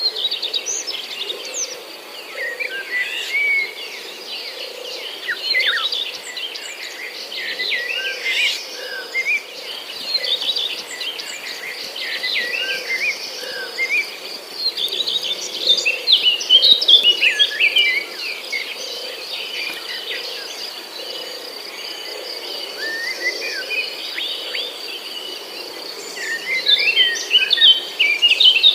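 Many small birds chirping and twittering at once in short, quick up-and-down calls, busiest about halfway through and again near the end, over a steady high insect buzz.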